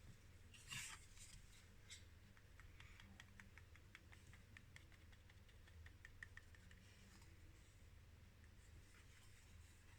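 Near silence, with a brief faint rustle about a second in, then a run of faint small clicks over a few seconds, as of small parts being handled.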